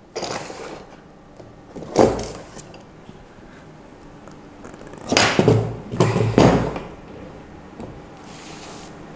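Unboxing items being moved and set down on a tabletop: a sharp knock about two seconds in, then a cluster of scraping and knocking sounds between about five and six and a half seconds.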